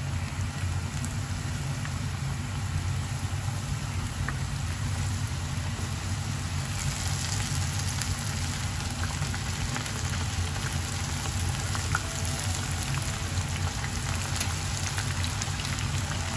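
Coated chicken breast pieces deep-frying in a pan of hot oil: a steady crackling sizzle that grows louder and brighter about seven seconds in, as another floured piece goes into the oil. A steady low hum runs underneath.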